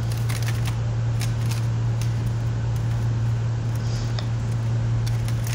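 Aluminium foil lids being pressed onto foil cake trays, giving a few faint crinkles and clicks over a steady low hum.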